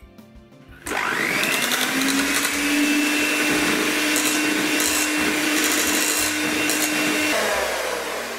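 Electric hand mixer starts up about a second in and runs steadily, its beaters whipping cream with condensed milk in a stainless steel bowl, then winds down near the end.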